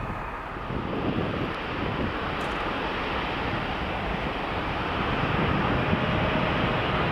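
Jet engines of a Turkish Airlines Boeing 777-300 passing, a steady rushing roar that grows louder, with a faint whine coming in near the end.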